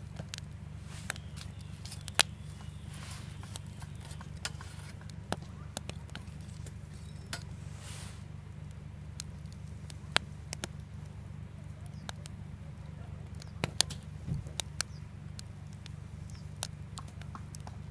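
Wood fire in a campfire stand crackling, with sharp irregular pops over a steady low hum.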